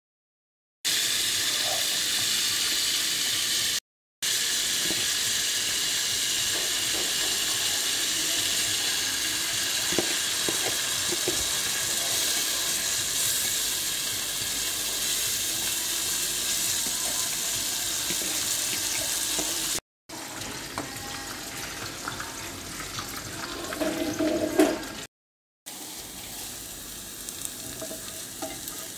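Steady sizzling while green-coloured rice is stirred in a pot, broken off by sudden cuts. About two-thirds of the way through it gives way to a quieter sizzle of chopped onions frying in a pan, with a spatula scraping and tapping on the pan.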